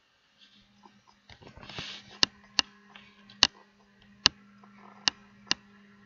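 Computer mouse button clicking: six sharp clicks at uneven intervals, starting about two seconds in, over a low steady hum and after a brief rustle.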